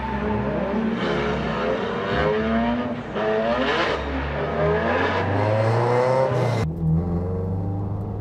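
Toyota AE86 Levin with a swapped-in 2-litre 3S-GE four-cylinder on individual throttle bodies pulling away, its revs climbing and dropping several times. About six and a half seconds in, the sound cuts suddenly to a steadier, lower engine note heard inside the cabin.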